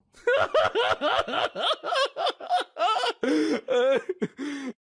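A person laughing in a rapid run of short, pitched bursts, about three a second.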